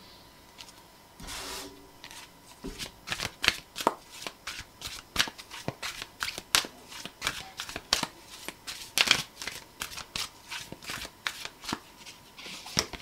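A deck of tarot cards being shuffled by hand: a quick, irregular run of crisp card clicks and flicks, several a second, starting about three seconds in after a short swish.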